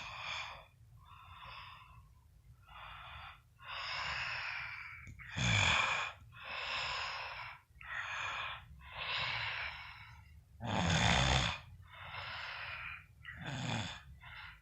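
A sleeping man snoring: a run of noisy, raspy breaths about a second apart, with two louder, deeper snorts about five and eleven seconds in.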